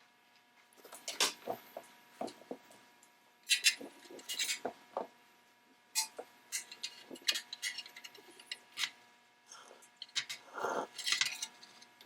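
Irregular clinks, knocks and scrapes of a metal carriage lamp and hand tools being handled while a solder joint is worked inside the lamp's chimney.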